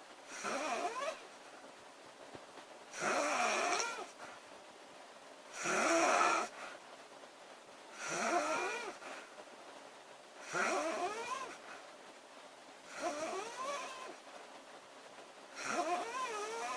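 Woman snoring loudly in a steady rhythm: seven snores about two and a half seconds apart, each lasting about a second, with a pitch that bends up and down.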